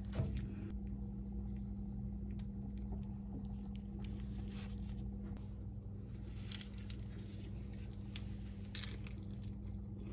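Crisp pan-toasted lavash crackling and rustling faintly as it is handled, in scattered small crackles over a steady low hum.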